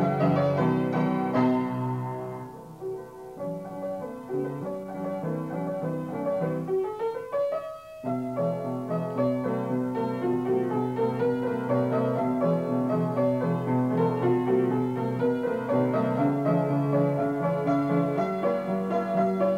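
Solo piano accompaniment playing a melody over chords. It softens for a few seconds, then an upward run about eight seconds in leads into a fuller passage.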